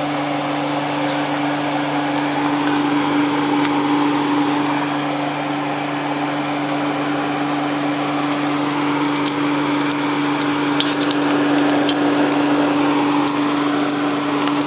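Battered shrimp frying in hot oil in a cast iron skillet: a steady sizzle with sharp crackles and pops that come thicker in the second half. A steady low hum runs underneath.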